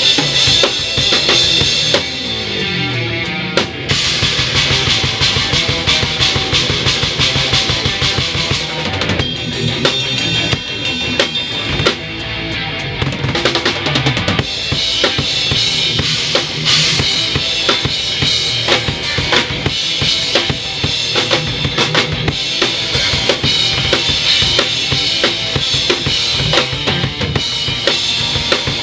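A rock band playing a song at full volume with the drum kit loudest: kick drum, snare and cymbals struck in a dense, driving pattern over guitars and bass guitar.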